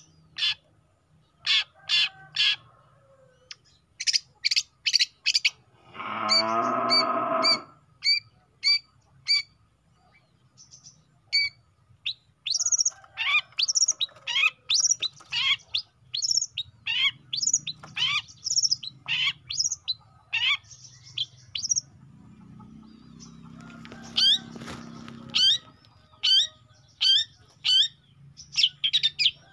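Young long-tailed shrike singing: runs of sharp high chirps and quick down-sweeping notes, with a harsh grating call lasting about a second and a half about six seconds in.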